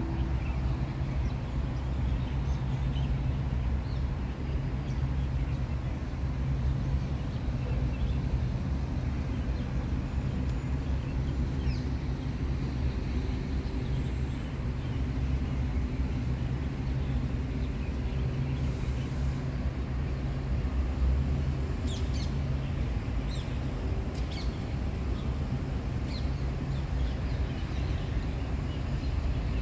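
Steady low outdoor rumble with a few faint, short, high bird chirps, mostly about two-thirds of the way through.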